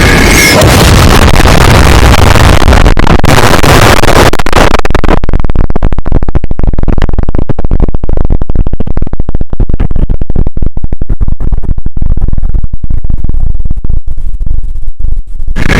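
Extremely loud, heavily distorted noise clipped at full volume. It starts as a harsh hiss across all pitches, and about five seconds in it turns into a deep crackling rumble.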